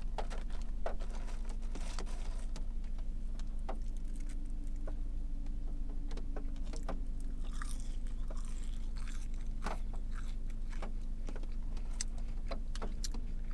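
A person chewing a mouthful of French fries dipped in sauce, with scattered small clicks and mouth sounds over a steady low hum.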